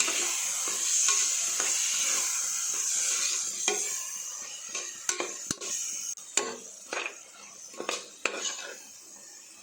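Mushroom masala sizzling in a pan after a splash of water, the hiss strong at first and dying down over the first few seconds, while it is stirred, the utensil knocking sharply against the pan about eight times in the second half.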